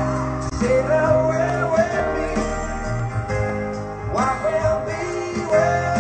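Background music: a song with a singing voice over a steady accompaniment.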